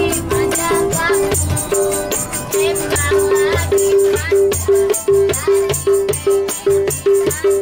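Live busker-style music: a home-made can drum beaten in a steady quick rhythm, about three beats a second, with a rattle shaken along and a voice singing over it.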